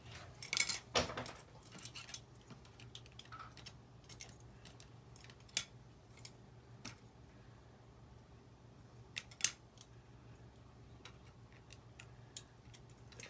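LEGO bricks being handled and snapped together: scattered light clicks and rattles, with a few sharper clicks around the middle and later on.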